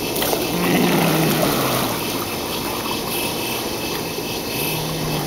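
Swimming-pool water splashing and lapping as a toddler is pulled through it, over a steady hum; the splashing is louder about a second in.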